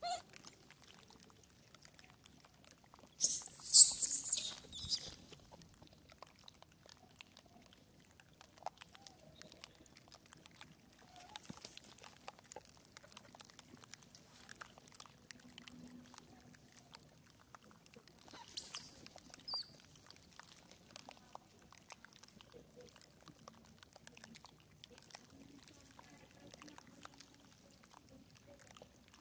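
Newborn long-tailed macaque squealing: a loud, very high-pitched cry lasting about two seconds a few seconds in, and a shorter, fainter one a little past the middle. Faint scattered clicks in between.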